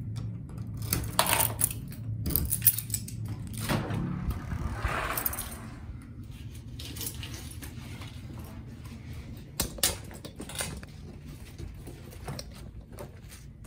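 A ring of keys jangling and clicking as a key is worked in a brass deadbolt lock, with several sharp metallic clicks over the first few seconds. Softer handling noise follows, with a couple of knocks near the end.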